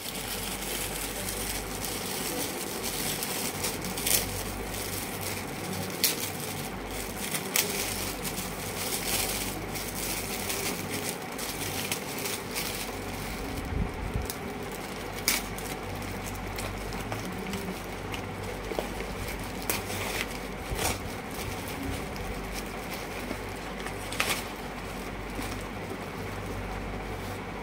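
Metallic foil gift wrap crinkling and tearing as it is pulled off by hand, with paper and cardboard packaging rustling, in irregular sharp crackles over a steady low background hum.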